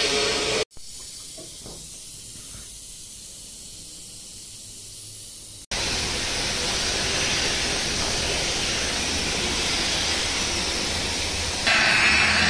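Gravity-feed paint spray gun hissing steadily for about six seconds as it sprays paint onto a car's bodywork, starting abruptly just before the middle after a quieter stretch. Near the end it cuts to an electric rotary polisher's motor running with a steady whine.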